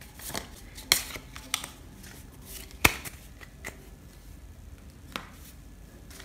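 Lenormand cards being dealt onto piles on a cloth-covered table, with a handful of sharp clicks and taps as cards are put down and squared. The loudest come about one and three seconds in.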